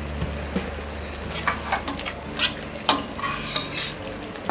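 A spatula stirs and scrapes through a thick tomato-and-yogurt masala gravy simmering in a pan. There are several scraping strokes from about a second and a half in, over a low sizzle of the bubbling gravy.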